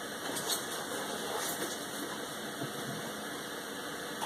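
Faint rustling and light clicks of packing peanuts and cardboard being shifted in a shipping box, over a steady room hiss.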